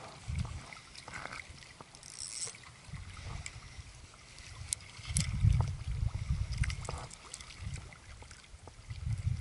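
Water lapping and sloshing close by, with uneven low rumbling, loudest a little past halfway, and scattered small sharp clicks and taps.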